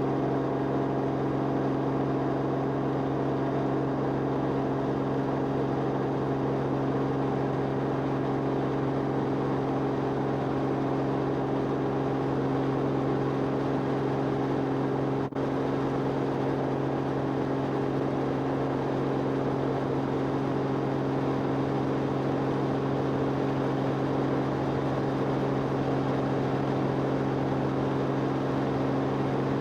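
Steady engine drone of an aircraft heard from inside its cabin, holding one pitch throughout, with a brief dropout about halfway through.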